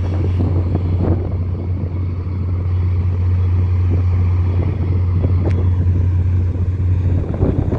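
Diesel locomotive engine running at a steady idle: a constant, loud low hum with faint clicks and rattles over it.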